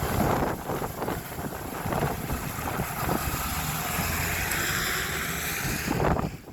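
Strong gusts of storm wind buffeting the microphone, a rumbling rush that swells and eases and drops off sharply near the end.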